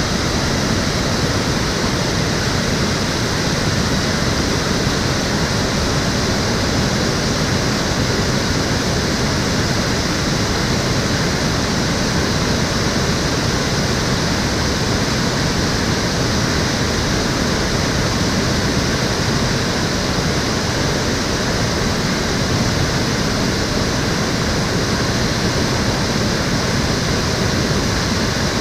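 Stream water flowing steadily, an even, unbroken rushing.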